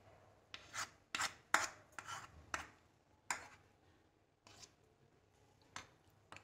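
Steel spoon scraping thick coconut-and-curd paste off a spatula and onto vegetables in a nonstick pan: a string of short, quiet scrapes, most of them in the first few seconds, then a few scattered ones.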